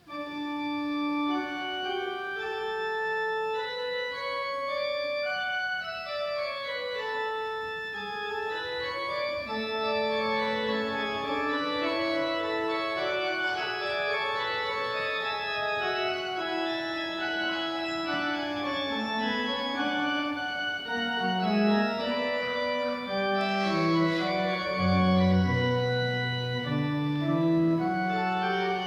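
Church organ playing a slow piece of sustained chords with moving notes, a deeper bass line coming in about two thirds of the way through.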